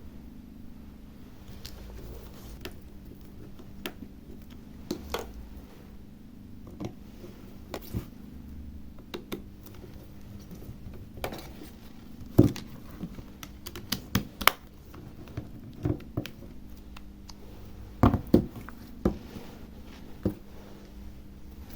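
Scattered sharp clicks and taps of the reassembled tablet's plastic housing being handled and pressed, loudest about halfway through and again near the end, over a steady low hum.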